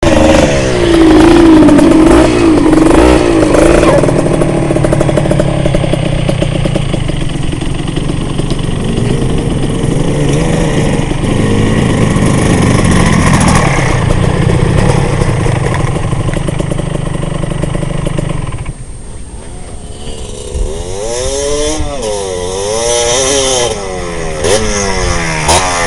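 Two-stroke dirt bike engines revving as the bikes climb a dirt trail, the revs rising and falling with the throttle. About two-thirds of the way through the loudest engine drops away, and another bike follows with its revs swinging up and down.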